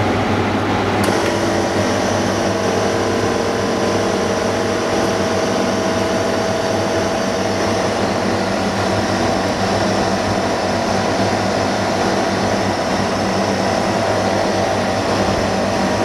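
Polarizer film laminating machine running: a steady whirring hum with several held tones, a hissier layer coming in about a second in.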